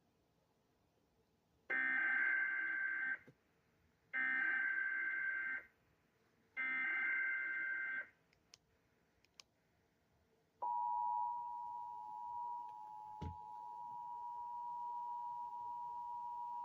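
Emergency Alert System SAME header: three bursts of warbling digital data tones, each about a second and a half long with short gaps between them. About two and a half seconds after the last burst, the steady EAS attention tone starts and holds, with one sharp click partway through. Together they open a new severe thunderstorm warning broadcast.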